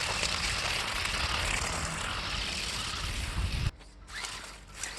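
A toy RC car's electric motor whirring under throttle as it drifts on tape-wrapped wheels over asphalt, over a steady low rumble. The sound cuts off abruptly a little before the end.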